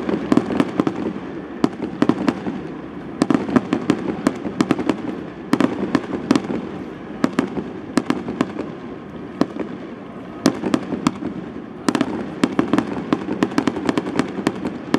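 Fireworks display: many sharp bangs of bursting shells in irregular, rapid volleys, with a lull of fewer bangs around ten to twelve seconds in.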